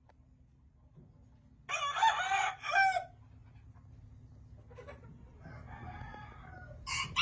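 Gamefowl rooster crowing loudly once, about two seconds in, followed by a fainter crow from farther off. A short loud sound comes just as the audio cuts off at the end.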